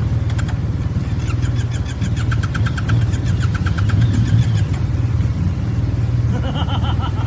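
Yamaha TMAX 530 maxi-scooter's parallel-twin engine running steadily at low revs while the scooter is held up on its rear wheel, a little louder about three to four and a half seconds in.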